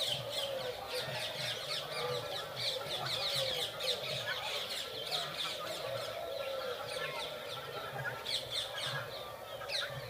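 A dense chorus of many small birds chirping rapidly from the trees, busiest about a third of the way in and again near the end, with lower honking calls from geese underneath.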